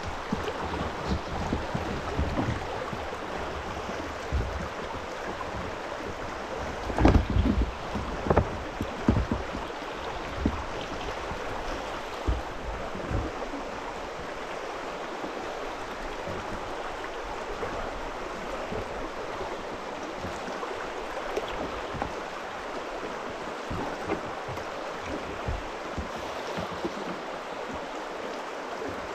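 River water rushing and splashing through a shallow rapid, lapping against kayak hulls. A few loud low thumps about seven to nine seconds in.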